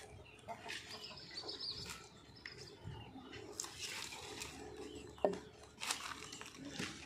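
Small birds chirping on and off, with a single sharp knock about five seconds in.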